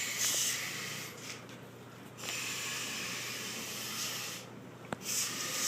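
Hot iron hissing in water as it is quenched, in three bursts of steam hiss, with a sharp metallic click about five seconds in.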